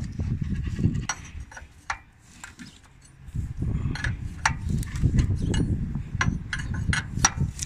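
Scattered metallic clicks and taps of an open-end wrench working the pipe fitting on a truck air compressor as it is tightened, coming thickest in the second half, over an uneven low rumble that fades for a stretch about a second and a half in.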